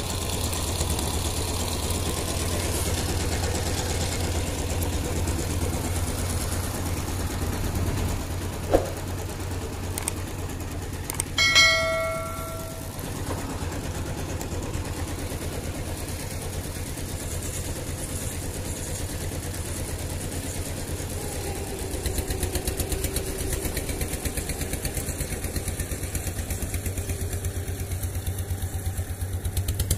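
A small engine running steadily with an even pulse. About eleven seconds in there is a short metallic ring, just after a sharp click.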